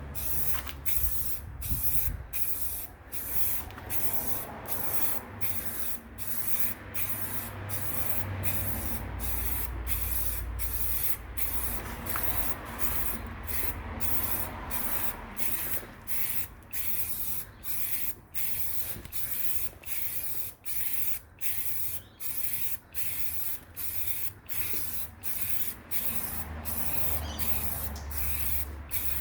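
Aerosol spray can of black paint spraying in short repeated bursts, a bit more than one a second, with brief gaps between them, laying a coat of paint.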